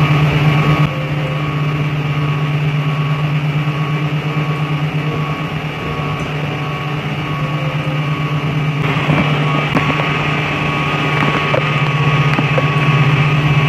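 Steady machinery running, a constant low drone with a few steady higher tones over it; it eases slightly about a second in and grows louder again around nine seconds in.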